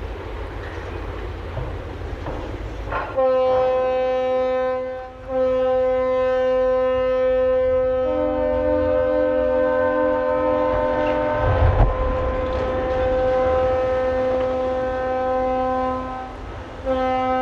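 A deep horn sounding over a low rumble: one long blast starting about three seconds in, with a second note joining for a few seconds to make a chord, then a short blast near the end.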